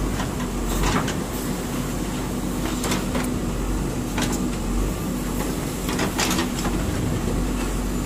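JCB 3DX backhoe loader's diesel engine running steadily under hydraulic load, with short knocks and clatters of broken brick about four times as the backhoe bucket works through rubble.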